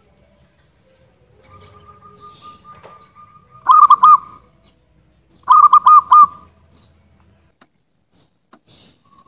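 Zebra dove (perkutut) cooing: a soft trill, then two loud phrases of three or four quick notes each, about two seconds apart.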